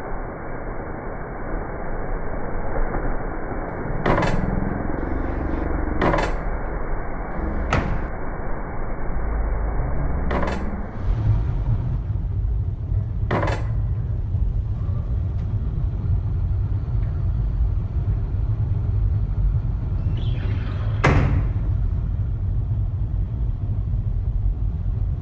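Steady low rumbling noise with six sharp clicks or knocks spaced through it. About eleven seconds in, the rumble changes to a deeper, steadier drone.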